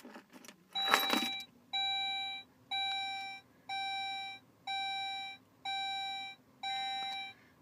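Saab 9-5 dashboard warning chime beeping seven times, about once a second, as the ignition comes on and the information display runs its self-check. A short knock comes just before the first beep.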